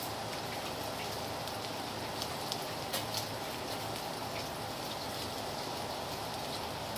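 Pieces of raw chicken sizzling in hot oil in a wok: a steady frying hiss with a few small pops around two to three seconds in.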